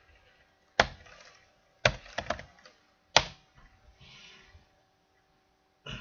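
About six sharp, separate clicks from working a computer's mouse and keyboard, with three in quick succession about two seconds in. A faint steady hum runs underneath.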